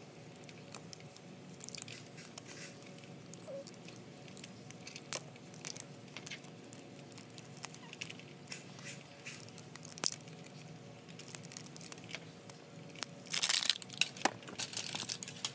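Plastic wrapper of an L.O.L. Surprise Confetti Pop ball being peeled off by hand: scattered crinkles and crackles, with a louder burst of crinkling and tearing about 13 seconds in.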